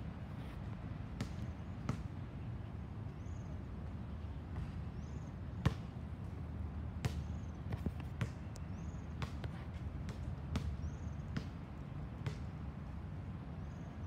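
Basketball bouncing on an outdoor hard court: about ten sharp thuds at uneven intervals, the loudest a little before the middle, over a steady low background rumble.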